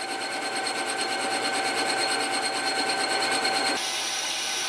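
Chinese mill-lathe combo running and turning the register of a lathe chuck back plate with an insert cutting tool: a steady machine whine over the noise of the cut, getting slightly louder. About four seconds in the sound changes abruptly and the whine shifts higher.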